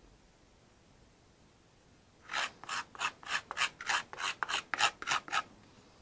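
Putty knife scraped quickly back and forth across a mixing board of filler, about eleven short scraping strokes in a row over three seconds, starting about two seconds in.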